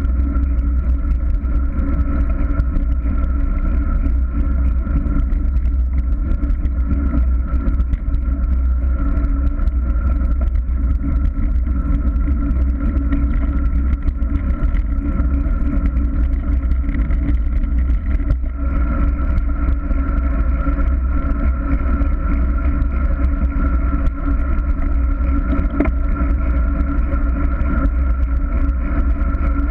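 Steady, loud wind rumble on the microphone of an action camera on a moving bicycle, mixed with road noise from the tyres on the tarmac.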